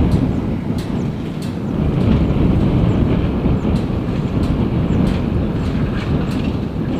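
Ryanair Boeing 737's jet engines at takeoff power, a loud steady rumble, with short knocks every second or so.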